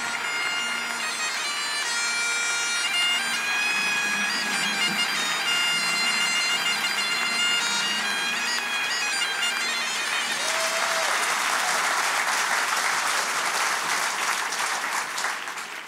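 Bagpipes playing a tune of held notes over a steady drone; about ten seconds in, the piping gives way to audience applause, which fades away near the end.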